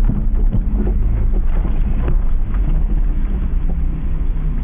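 A car's engine and road noise heard inside the cabin while driving, a steady low sound with a few short knocks in the first half.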